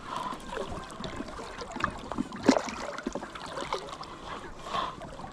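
Water sloshing and splashing around a small float or vessel, with scattered small knocks and one sharper, louder sound about halfway through.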